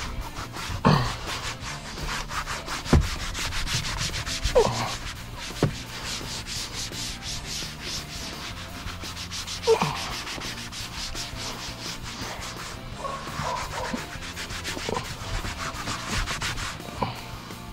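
A stiff brush scrubbing back and forth in quick, rhythmic strokes, several a second, over a low steady hum. A few short squeaks come in between the strokes.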